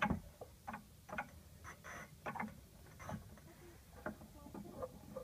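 Irregular light clicks and scraping of plastic parts as a new fuel pump assembly is handled and seated in the fuel tank opening, roughly one or two clicks a second.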